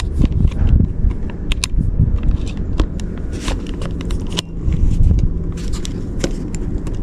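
Scattered clicks and scrapes of a Blink doorbell camera's plastic housing and a flat screwdriver as the camera is pushed back onto its mounting bracket, over a steady low rumble.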